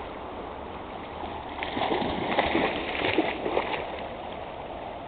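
Shallow stream flowing steadily, with a stretch of splashing in the water from about one and a half to nearly four seconds in.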